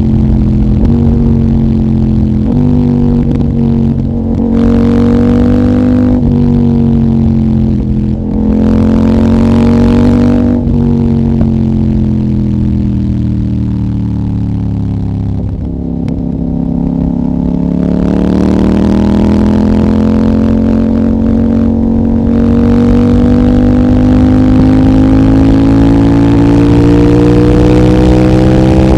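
CFMOTO 800NK parallel-twin engine, decatted with the stock muffler, accelerating hard through quick upshifts: the revs climb and snap down about every two seconds, five or six times. Then it eases off with the revs falling for several seconds, and pulls again with the revs rising slowly.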